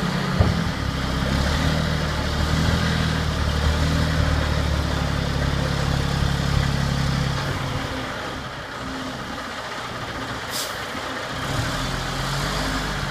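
Cummins diesel engine of a Terex TR35 rigid rock truck running while its tipped dump body is lowered. Its note weakens and gets quieter about seven or eight seconds in. A brief sharp hiss comes near the end.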